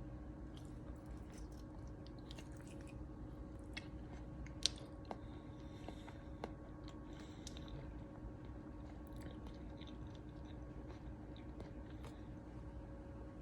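Faint scattered small clicks and light handling noises over a steady low hum, with one sharper tick a little before halfway.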